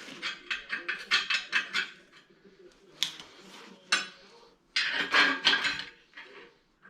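Metal tools and parts clinking and clicking: a quick run of sharp clicks, two single knocks, then another quick run of clicks.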